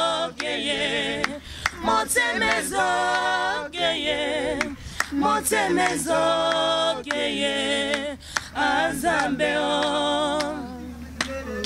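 A small group of men and women singing a Lingala gospel song a cappella, several voices together in long held phrases with short breaks between them. The singing ends near the end.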